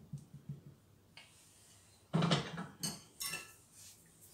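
Metal spoon tapping and clinking against dough, countertop and bowl while flour-and-water paste is scooped and dabbed along the dough's edges: soft quick taps at first, then a few louder clinks about two to three seconds in.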